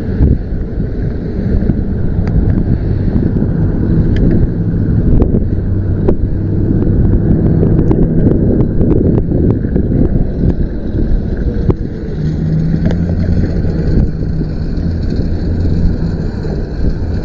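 Sharp plastic and metal clicks and taps as a car wiper blade is handled and fitted onto its arm, over a loud, steady low rumble with a faint hum.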